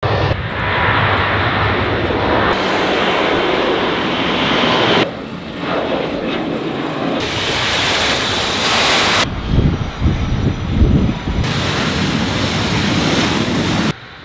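Jet airliner engines, loud, in a quick series of short clips that cut abruptly from one to the next every two seconds or so. About two-thirds of the way through, one clip has a deep, uneven rumble.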